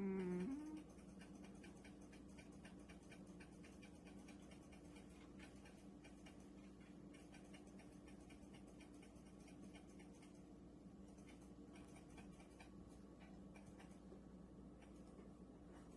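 British Shorthair cat touched in its sleep gives a short, strange vocal sound whose pitch dips and then rises, ending within the first second. After that it is near silence, with faint rapid ticking and a low steady hum.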